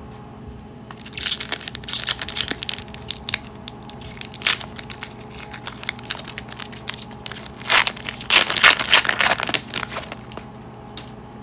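Foil wrapper of an Upper Deck hockey card pack crinkling and tearing as it is ripped open by hand, in a run of bursts that is loudest about eight to ten seconds in.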